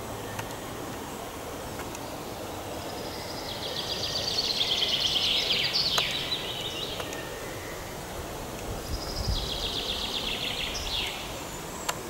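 A small songbird singing twice, each song a fast run of high repeated notes that drops in pitch at the end, the two songs about six seconds apart, over a steady background hiss.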